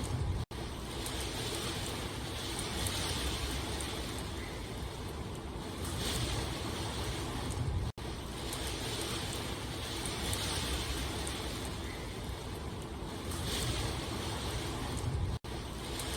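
Steady rain, an even rushing hiss with slow swells, that cuts out for an instant three times, about every seven and a half seconds.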